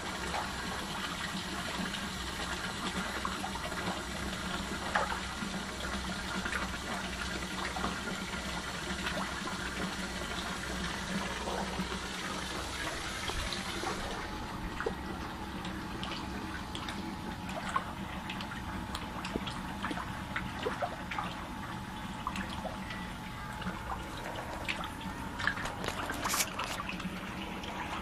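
Water running steadily at a fish pond, with a low hum underneath and scattered small clicks and splashes at the surface. The hiss softens about halfway through, leaving the small splashes more distinct.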